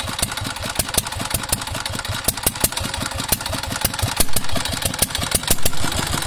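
Small stationary single-cylinder diesel engine of a tubewell pump running steadily, its exhaust beating in a fast, even chug with sharp clacks scattered through it.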